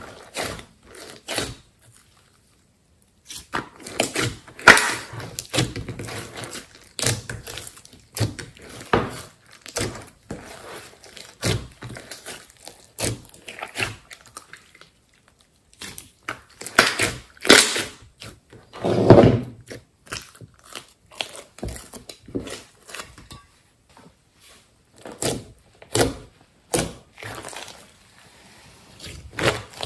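Thick slime being squished, pressed and stretched by hand: irregular sticky clicks and pops, with a few short pauses and a longer squelch a little past the middle.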